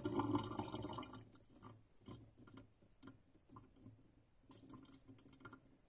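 Faint scattered ticks and soft rubbing as fingers peel and rub wet magazine paper off a copper-clad board, uncovering the toner-transferred traces. A trickle of water fades out in about the first second.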